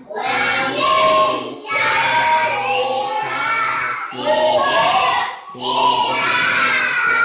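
Children's voices chanting a Quran recitation aloud in a sing-song melody, in phrases of a couple of seconds with short pauses for breath between them.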